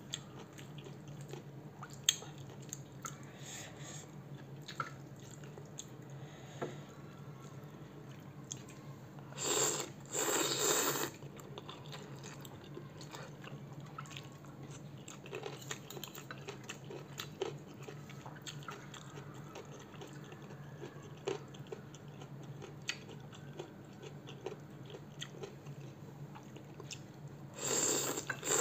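Close-up mouth sounds of a person chewing and biting on spicy instant noodles and firm petai beans, with small clicks of a spoon and chopsticks against the bowl. Two loud slurps of noodles, about ten seconds in and right at the end, over a low steady hum.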